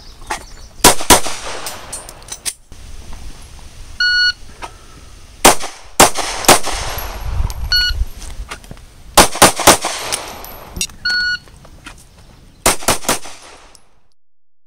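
Handgun shots fired in quick strings of two or three. Each string is started by the short, high electronic beep of a shot timer, and four strings are heard. The sound cuts off suddenly near the end.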